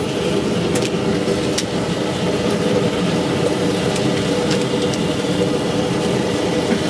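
Propane gas forge burner running with a steady, even roar, with a couple of faint clicks in the first two seconds.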